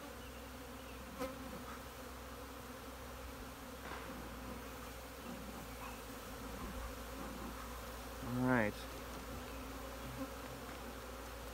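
Honeybees buzzing steadily around an open hive. About eight seconds in, a louder buzz swells and rises in pitch for about half a second.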